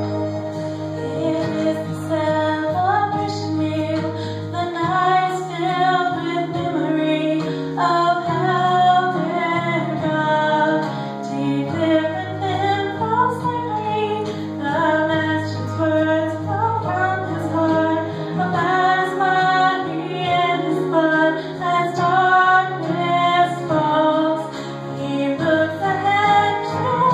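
Church choir singing, women's voices carrying the melody, over low accompaniment notes held for several seconds at a time.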